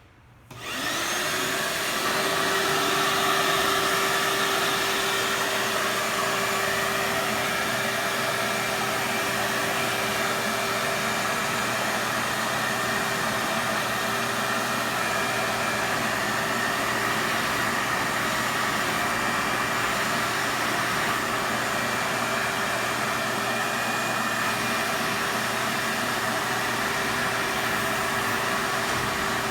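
Vacuum cleaner switched on about half a second in, its motor spinning up quickly to a steady whine and then running steadily.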